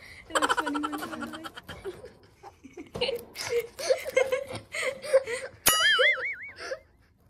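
A person giggling and laughing in short pulses, with a cartoon-style wobbling whistle sound effect for about a second near the end.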